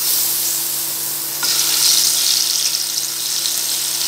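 Whole climbing perch (koi fish) sizzling as they are slid one by one into hot mustard oil in a karai. The sizzle grows louder about a second and a half in as another fish goes into the oil.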